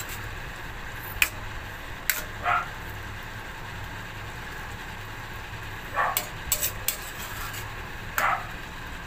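Metal spoon stirring a thick stew in a stainless steel pan: scattered clinks and scrapes against the pan over a steady low hum. A few short, sharper sounds come about two and a half, six and eight seconds in.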